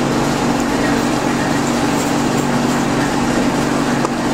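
Steady machine hum with an even hiss over it, holding level without change.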